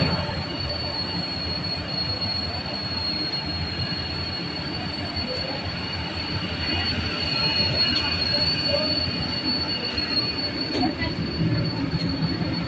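Continuous mechanical rumble with a steady high-pitched whine held throughout.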